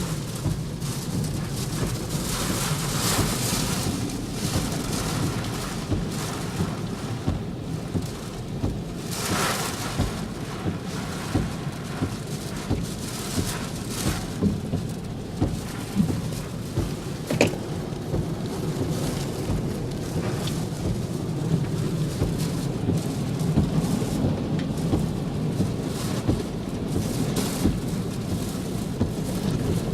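Heavy typhoon rain and wind beating on a car, heard from inside the cabin: a steady rush with a low rumble and many small drop impacts, swelling now and then with stronger gusts.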